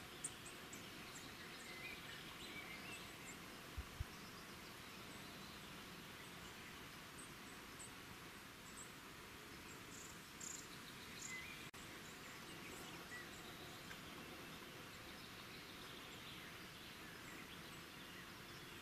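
Faint natural outdoor ambience: short high bird and insect chirps scattered over a steady background hiss. Two brief low thumps come about four seconds in.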